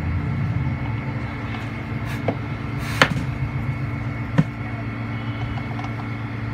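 Steady low background hum, broken by three short sharp clicks a little over a second apart; the middle one is the loudest.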